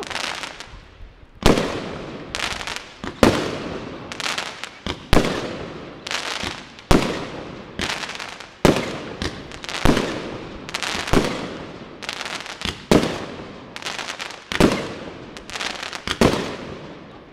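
Aerial fireworks bursting in a rapid run of bangs, about one or two a second, each trailing off in a ringing echo.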